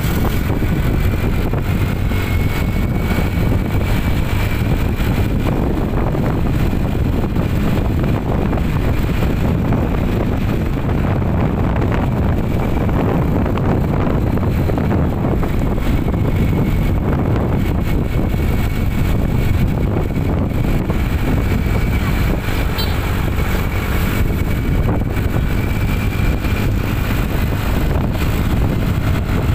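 Steady road and engine noise from a moving vehicle, with wind on the microphone and a faint high whine drifting slightly in pitch.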